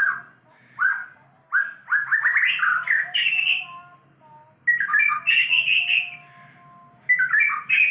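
White-rumped shama calling in four bursts of short, rising chirps, plain repeated calls rather than full song. The voice is still a little hoarse: the bird is recovering from hoarseness after several days of treatment.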